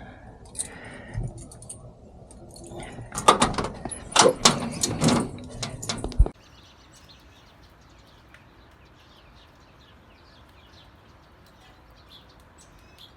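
Keys jangling, knocks and a door being handled for about six seconds, then a sudden cut to a faint hiss with small birds chirping now and then.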